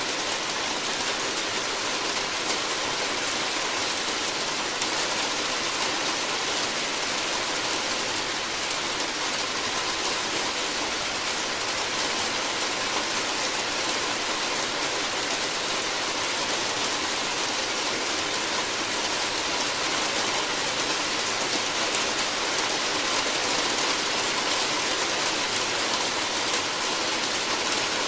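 Steady rain falling on a roof: an even, unbroken hiss of drops.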